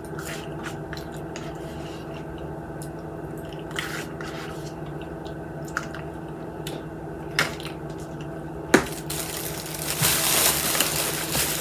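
Close-miked eating sounds: soft wet chewing and small mouth clicks over a steady low hum, turning into a louder crackle and rustle from about nine seconds in.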